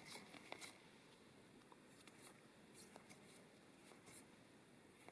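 Near silence with a few faint, brief swishes of trading cards being slid and handled.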